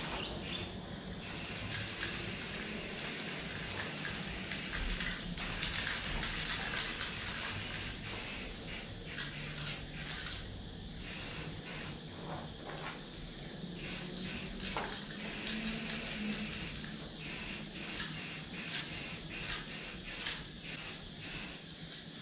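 Aerosol spray-paint cans hissing in irregular bursts, some short, some held for a second or two, as graffiti is sprayed onto a wall.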